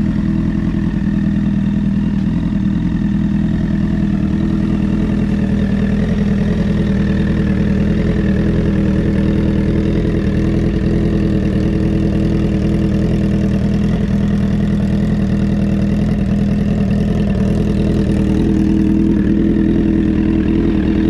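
Honda CBR1000RR sportbike's inline-four engine idling steadily, a little louder near the end.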